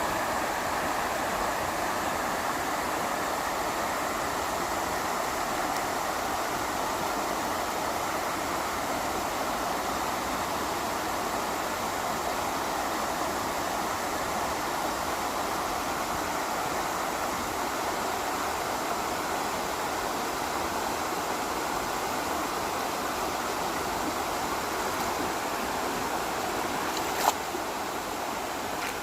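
Waterfall in a mountain stream, a steady rushing of falling water. A single sharp click near the end.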